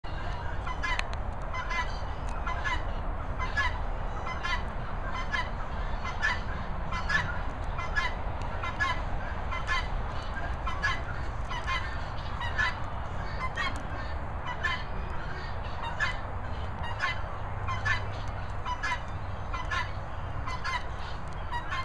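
A bird calling over and over at an even pace, about one and a half calls a second, over a steady low rumble.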